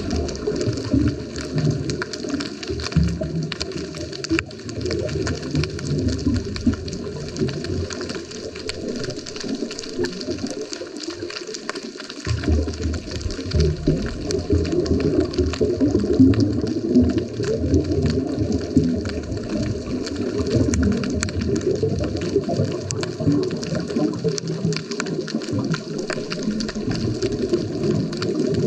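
Scuba diver's exhaled bubbles from the regulator, heard underwater through the camera housing as a continuous low bubbling rumble, easing briefly a little past ten seconds in.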